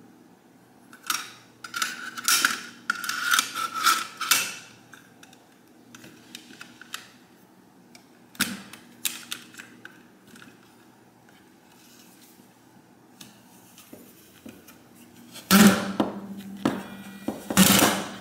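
Stainless steel lever-action French fry cutter being worked: metal clicks and scraping as a piece of sweet potato is set into it, a sharp clack about halfway, and near the end two loud crunching clacks as the handle is pulled down and the potato is forced through the blade grid.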